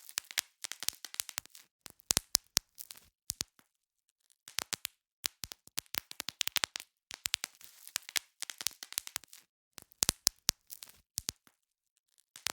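Bubble wrap being popped: clusters of sharp snapping pops in quick irregular runs, with short silent pauses between them.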